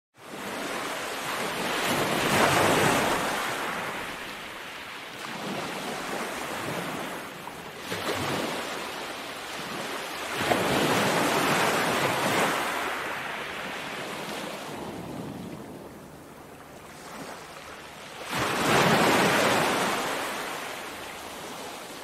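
Small ocean waves breaking and washing up a sandy beach. The surf swells and fades every few seconds.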